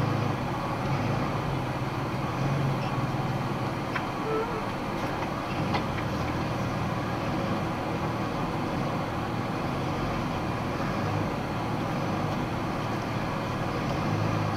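Box truck's engine running at low revs, heard from inside the cab as the truck creeps along at walking pace: a steady low rumble with a few faint clicks.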